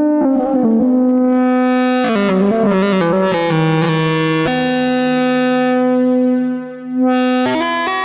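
Behringer Odyssey analog synthesizer playing held notes with a bright, buzzy tone, two pitches sounding at once. About two seconds in comes a quick run of notes as the filter opens and the sound turns bright. Near the end the sound dips for a moment before a new note starts.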